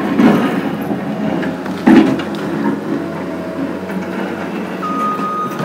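Heavy truck engine running, with a loud thump about two seconds in; near the end the truck's reversing alarm starts beeping.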